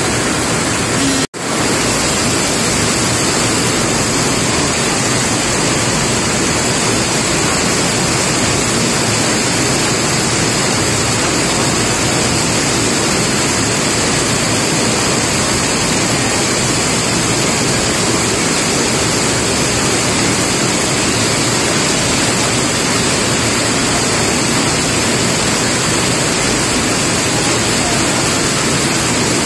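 Steady rain falling, a dense even hiss of water. A momentary gap of silence breaks it a little over a second in.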